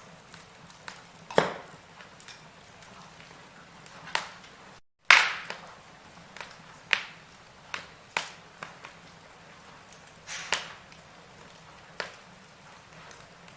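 Wood fire in a fireplace crackling, with sharp pops every second or two over a faint steady crackle. The sound cuts out for an instant about five seconds in, and the loudest pop comes right after.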